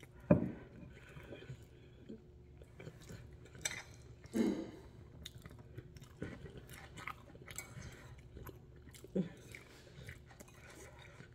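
Close-miked chewing of a mouthful of noodles and vegetables, with wet mouth clicks and smacks. A few sharp knocks come through, the loudest about a third of a second in, fitting a fork against the plate.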